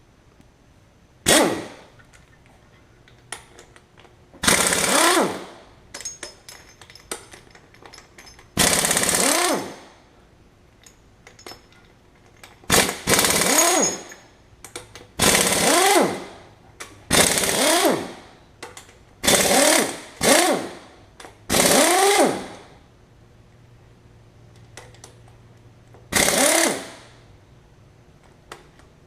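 An impact wrench running in about ten short bursts of up to a second each, hammering with a pitch that sweeps as it spins, loosening engine bolts.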